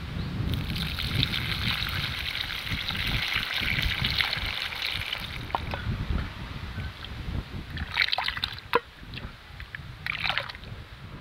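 Water pouring and trickling as rinse water is drained from a steel bowl of soaked chana dal. Then the dal and its water are tipped into a clay pot, with two short splashes near the end.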